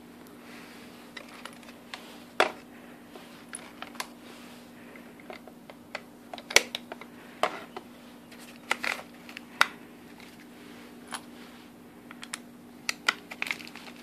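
Irregular sharp metallic clicks of 5.45x39 cartridges being pressed one at a time into a rifle magazine, in uneven clusters with pauses between them.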